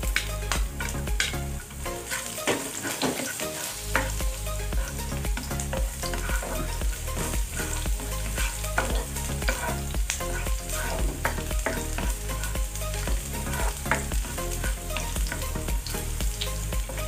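Chopped garlic sizzling in hot oil in a nonstick frying pan, stirred with a spatula, with frequent short scrapes and taps of the spatula against the pan.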